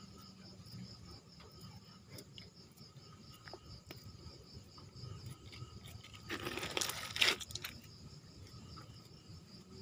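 Fingers and a thin stick scraping and crumbling damp soil, with a louder crunching scrape a little past the middle. A faint, steady insect trill, typical of crickets, continues behind it.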